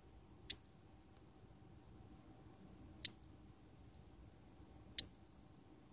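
Three short, sharp, high clicks, roughly two to two and a half seconds apart, over faint room tone.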